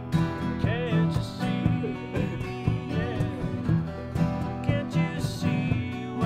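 Country-style acoustic guitar music.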